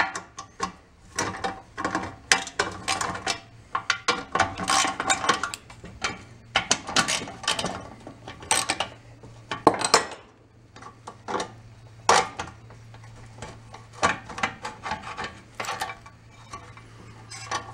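Hand ratchet with a socket on an extension clicking in short runs as nuts are backed off an old outboard motor, along with metal clinks of the socket and tools on the nuts.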